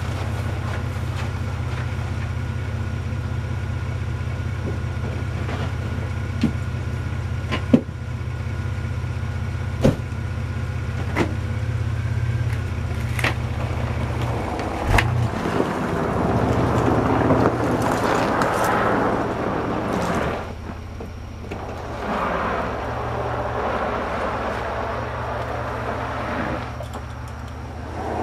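Chevrolet S-10 Blazer idling steadily, with several sharp knocks and cracks of ice breaking loose. About halfway through the engine note changes and a louder rough noise follows as the truck moves off over packed snow and ice.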